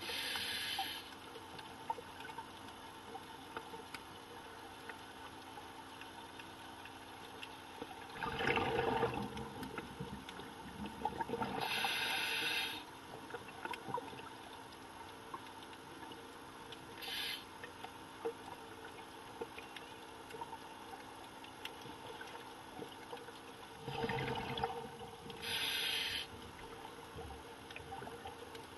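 Scuba diver breathing through a regulator underwater: four short hissing inhales, and twice a longer gush of exhaled bubbles.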